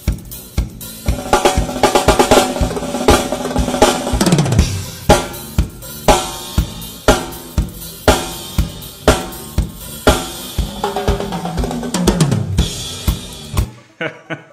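Drum kit played live in a fast groove of bass drum, snare and cymbals, broken twice by rapid fills that fall in pitch. The playing stops shortly before the end.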